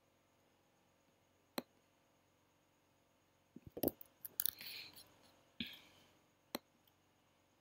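Scattered sharp clicks of a computer mouse and keyboard: a single click, then a busy cluster of clicks with a couple of short rustling noises around the middle, and a last click.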